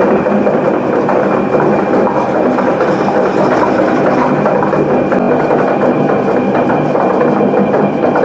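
Background music with a steady machine drone underneath.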